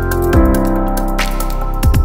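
Electronic background music: held synth chords over a beat of deep kick drums, with a sharp snare-like hit between them.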